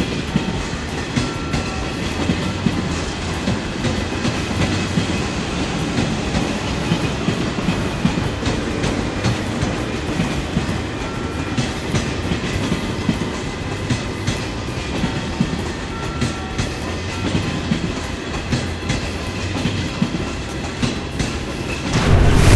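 A train running along the track: a steady rumble with frequent clatter from the wheels. Near the end a much louder sound abruptly cuts in.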